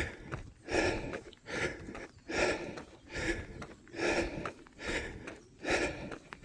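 A runner's heavy breathing while running uphill, hard regular breaths a little more than one a second.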